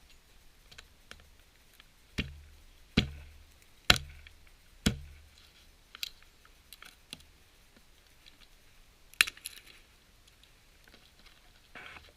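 A series of sharp knocks and clicks: four strong knocks about a second apart, then lighter scattered clicks and one more sharp click later on.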